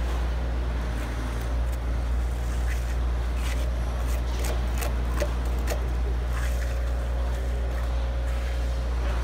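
Concrete truck's engine running steadily, with scattered short scrapes and taps from hand tools working the wet concrete of a footing pad.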